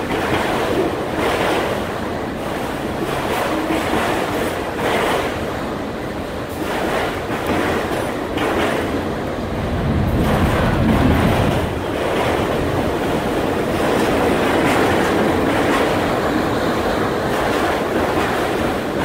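Autorack freight cars rolling past close by, their steel wheels rumbling on the rails with a clattering burst repeating every second or two. A deeper rumble swells about ten seconds in.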